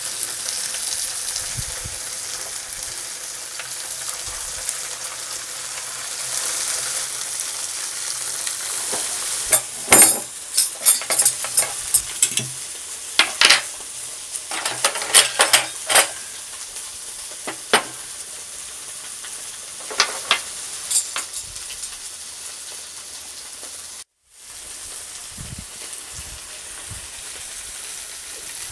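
Food sizzling on a charcoal grill in a steady hiss. In the middle comes a run of sharp clicks and knocks from a utensil handling the food, and the sound drops out completely for a moment near the end.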